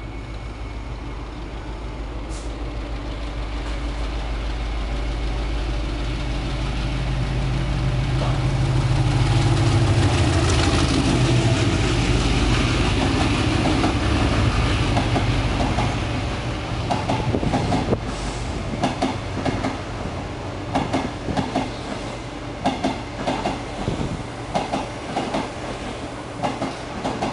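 Locomotive-hauled passenger train passing at speed: a low drone builds as the locomotive approaches and goes by, loudest about ten seconds in. The coaches follow with a steady rhythmic clatter of wheels over rail joints.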